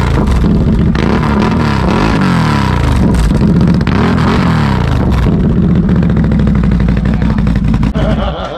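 Sport ATV engine with an SLG aftermarket exhaust, revved in a series of rising and falling blips, then held steadier before dropping off about eight seconds in.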